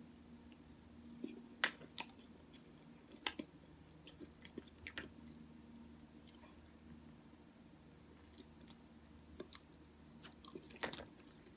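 A person chewing and biting into a beef and bean burrito, with irregular sharp clicks, the loudest a little under two seconds in and near the end, over a faint steady hum.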